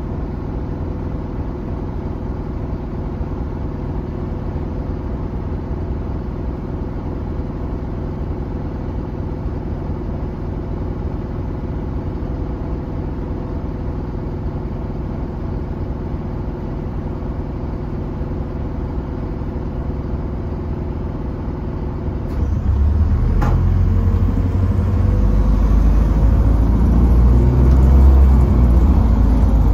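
Optare Versa single-deck bus engine idling, heard from inside the cabin. About 22 seconds in, the bus pulls away: the rumble grows louder, with a rising whine as it picks up speed.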